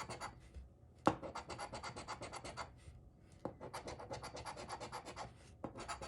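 Scratch-off lottery ticket being scratched: runs of quick, rapid strokes, broken by short pauses about a second in, around three seconds in and again near the end.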